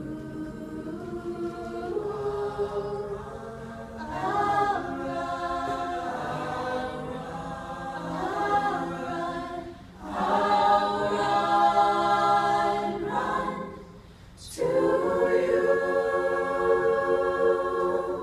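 Mixed-voice a cappella choir singing held chords in swells, with no instruments. After a short break about fourteen seconds in, a loud sustained chord stops sharply near the end.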